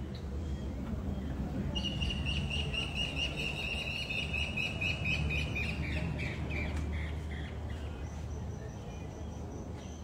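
A high-pitched, pulsing animal call starts about two seconds in and slowly drops in pitch, fading out around seven seconds. A fainter high chirp then repeats several times near the end, over a steady low rumble.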